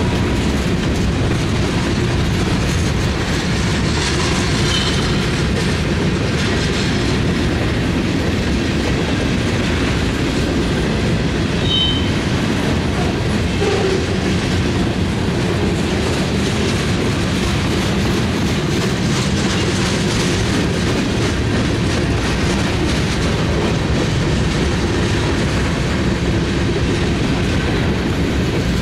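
Freight cars (covered hoppers and a centerbeam lumber flatcar) rolling past: a steady rumble of steel wheels on rail with clickety-clack over the rail joints, and two brief high wheel squeals.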